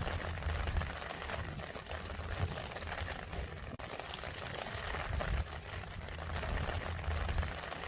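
Steady rain falling, with many close drops pattering and splashing and a low rumble underneath.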